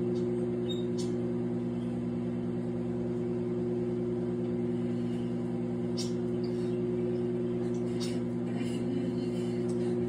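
Countertop microwave oven running, a steady low hum.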